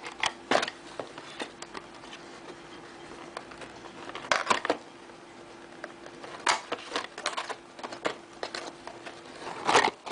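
Cardboard packaging being handled: short scrapes, rubs and knocks of cardboard as a small box is worked out of the carton, in several bursts with pauses between. A faint steady hum sits underneath.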